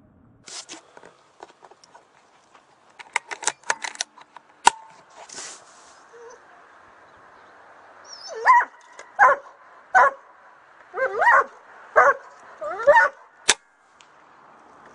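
Crows cawing: a run of about seven loud, harsh calls in quick succession, followed by one sharp click just afterwards.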